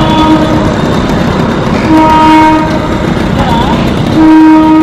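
ALCo diesel locomotive running light, its engine rumbling steadily as it sounds its horn three times: a brief toot at the start, a longer blast about two seconds in, and another near the end.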